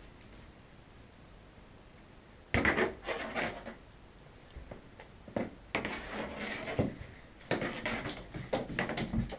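A cat's claws and paws scrabbling and skittering on a wooden floor as it dashes and spins after a string toy, in quick clattering bursts that begin a couple of seconds in.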